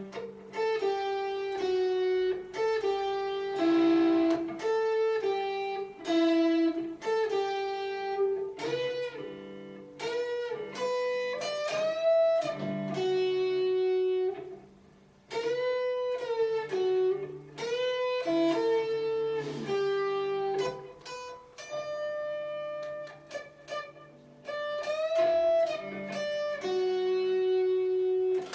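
Guitar played as a single-note lead line, practised phrase by phrase, with several notes bent up and back in pitch and short pauses between phrases.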